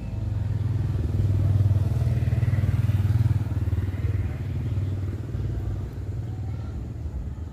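A motor vehicle engine running, a low rumble that grows louder about a second in, is loudest around two to three seconds in, then slowly fades, like a vehicle passing by.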